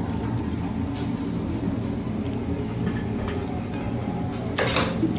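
Steady low rumble in a hibachi restaurant, with one brief metal scrape of the chef's spatula on the hibachi griddle near the end.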